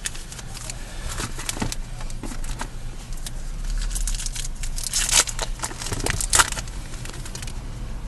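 Baseball trading cards being flipped through by hand along with crinkling foil pack wrappers: a quick run of rustles and snaps, with two louder bursts about five and six seconds in.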